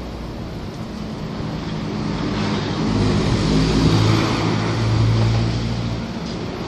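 Wind rushing over the microphone, with a motor engine passing: its steady low hum grows louder about two seconds in, is loudest in the middle and fades near the end.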